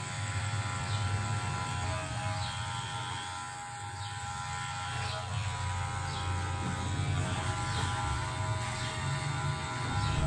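Electric hair clipper running with a steady hum while cutting a fade at the back of the neck, worked over a comb.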